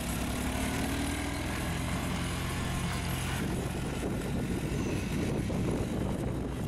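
ATV engine running steadily as the four-wheeler tows a wheeled steer roping dummy across the arena dirt. After about three seconds its even engine tone gives way to a rougher, noisier rumble.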